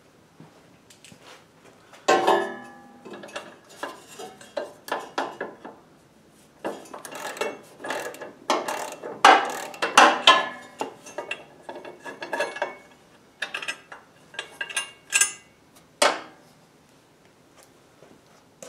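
Hand wrench working the impeller shear bolt and nut loose on a Honda HSS1332 snowblower: irregular bursts of metal clicking and clinking, with pauses between them.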